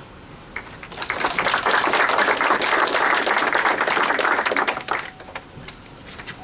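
Audience applauding: the clapping swells about a second in, holds for about four seconds and dies away with a few last scattered claps.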